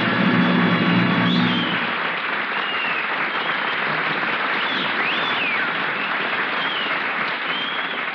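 A held closing music chord ends about two seconds in, and the studio audience applauds steadily through the rest.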